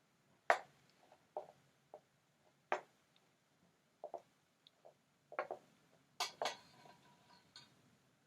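Irregular clicks and knocks, about ten of them, the loudest half a second in and a close pair about six seconds in that leaves a short ringing tail.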